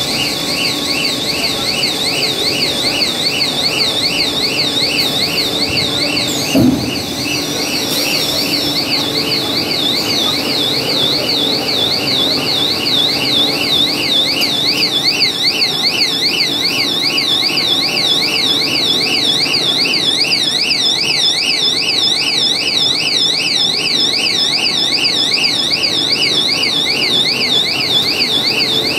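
Electronic warbling alarm sounding without a break, its pitch sweeping up and down several times a second, over the steady hum of a running stretch film line. A single thump comes about seven seconds in.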